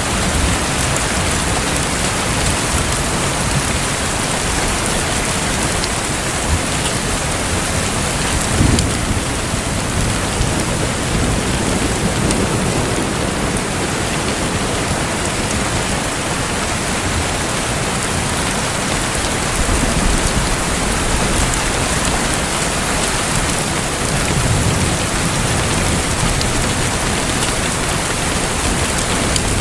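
Steady, continuous rush of water noise, like rain falling on a surface, with a few low rumbles: about eight and a half seconds in, around twenty seconds, and a longer one near twenty-five seconds.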